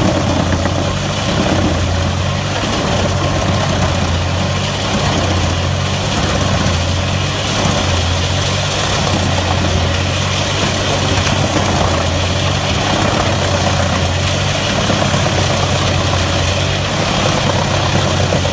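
A heavy machine's engine running steadily at an even speed, with a constant low hum and no revving.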